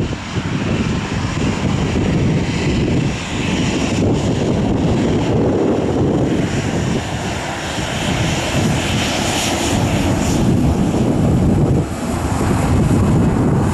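Aircraft engines of a passing airliner: a loud, continuous rumble with a hiss that grows brighter about two-thirds of the way through.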